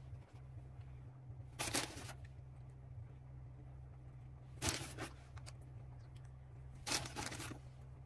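Three short rustles as pinches of grated cheese are picked up and sprinkled onto sauced bread slices, over a faint steady low hum.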